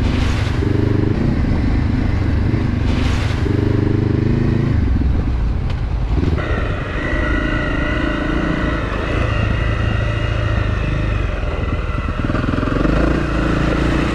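Adventure motorcycle engine running on a dirt track, its note rising and falling with the throttle, with a clear change in tone about six seconds in.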